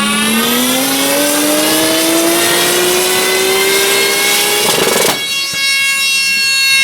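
Turbocharged 2.9-litre VR6 engine of a Golf 2 pulling hard under acceleration, its pitch climbing steadily for about five seconds, then cut off with a short rush of noise. After it a steady high-pitched buzzing tone sounds.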